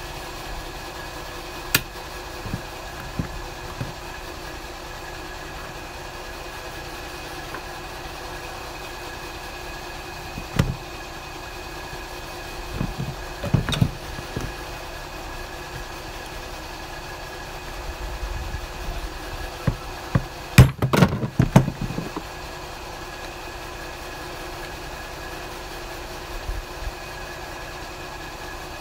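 Scattered sharp metal clicks and knocks from locking pliers and a screwdriver working at a small plastic Mikuni fuel pump to pry it open, with a quick run of louder knocks a little after two-thirds of the way through. A steady mechanical hum runs underneath.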